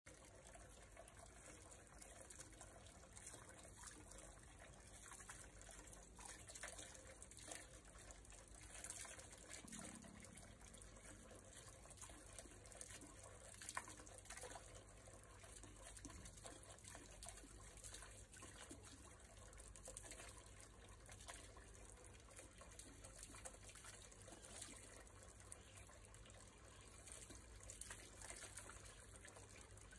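Faint, steady trickle of water from a hose pouring into a metal pot of water, with light splashing as a young raccoon bathes in it. One brief louder sound about halfway through.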